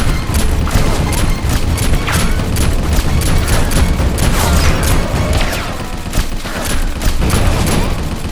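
Rapid, repeated shots from Nerf blasters in an exchange of fire, with a steady heavy low beat underneath.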